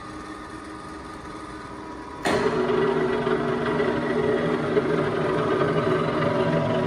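Gleason Model 14 Coniflex straight bevel gear generator starting its cycle. A low machine hum jumps suddenly louder about two seconds in, and the machine then runs on with a steady mechanical hum made of several held tones.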